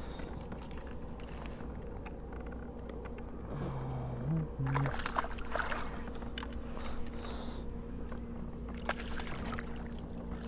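Water sloshing and splashing beside a kayak as a hooked smallmouth bass is played to the boat, with a few short sharp splashes and knocks.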